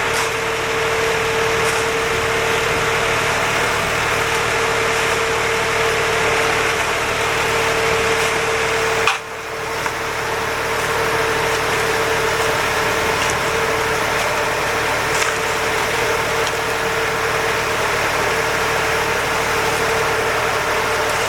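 Concrete mixer truck's engine running steadily, with a constant whine over it; the sound dips briefly about nine seconds in.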